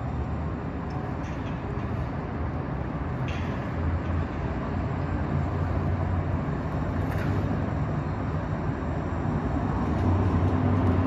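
Light-rail train approaching slowly on street-running track: a steady low rumble and hum from its motors and wheels, growing gradually louder as it nears.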